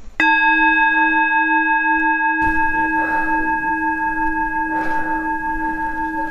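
A singing bowl struck once just after the start, then ringing on with several steady, slightly wavering tones that barely fade.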